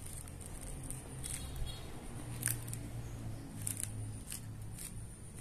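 Paper worksheet being handled and a marker touching it: about five short rustles and taps over a steady low hum and a faint high whine.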